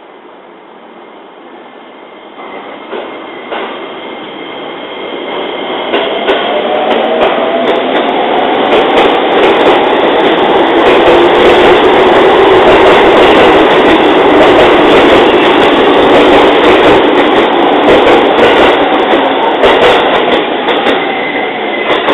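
JR 205 series electric train pulling out and picking up speed, getting steadily louder over about ten seconds as its traction motors whine up in pitch and its wheels run over the rails with scattered sharp clacks.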